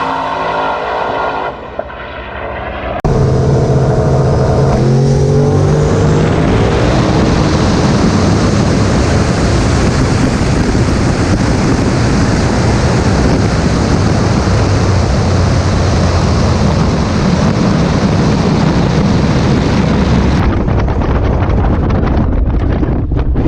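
Turbocharged LS-engined drag car launching hard about three seconds in, its engine note climbing through the first few seconds, then a loud steady full-throttle roar down the track that drops off near the end as the throttle is lifted.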